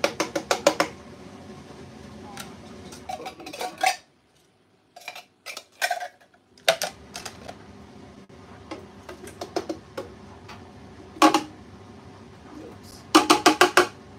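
A metal food tin knocked repeatedly against a blender jug to shake out tinned peaches, in quick runs of sharp clinking knocks at the start, about four seconds in, and near the end.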